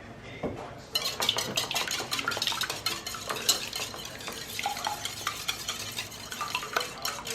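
Eggs and coconut milk being beaten in a bowl, the utensil clicking quickly and steadily against the bowl; the mixing starts about a second in.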